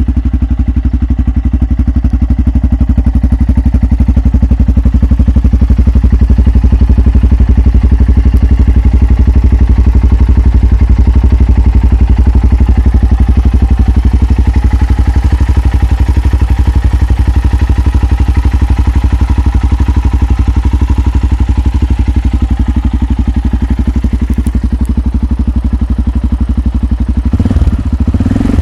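Yamaha XT 660 X's single-cylinder four-stroke engine idling steadily, then revved briefly near the end.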